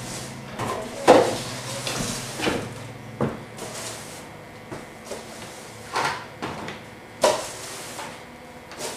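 Irregular sharp knocks and bumps of objects being handled, about six of them, the loudest about a second in and again about seven seconds in.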